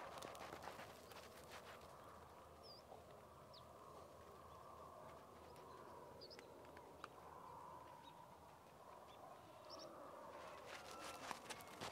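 Faint clinks and scrapes of a metal strainer ladle against aluminium cooking pots, in a cluster near the start and again near the end, with a few faint bird chirps in between.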